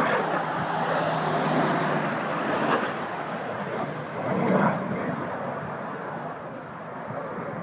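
Jet roar of CT-114 Tutor turbojet aircraft flying past, with a high whine sliding down in pitch over the first few seconds. The roar swells again about four and a half seconds in, then slowly fades.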